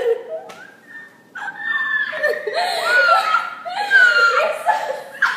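Girls laughing hard in high-pitched peals, starting after a brief lull about a second in.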